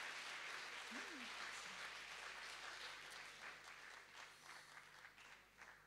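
Audience applauding after a song, the applause thinning into scattered separate claps and dying away near the end.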